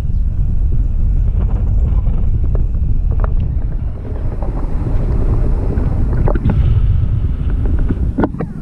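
Wind rushing over the microphone of a camera held out in flight on a tandem paraglider: a loud, steady low rumble of buffeting.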